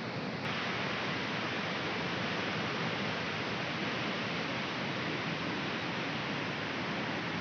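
Floodwater from an overflowing pond rushing over the ground in fast, churning rapids: a steady rush of water.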